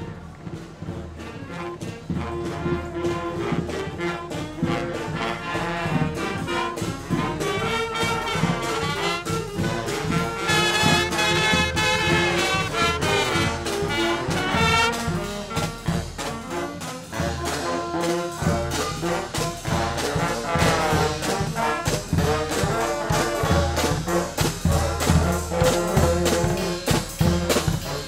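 A street brass band playing as it marches: trumpets, saxophone, clarinet and brass horns over a steady drum beat that grows heavier in the second half.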